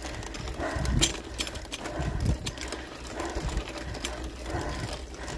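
Mountain bike rattling and clicking as it rides over a rough, rutted dirt road, with many irregular sharp clicks over a steady low rumble.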